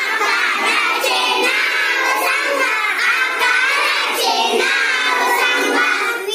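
A group of young girls singing a song together, many voices at once.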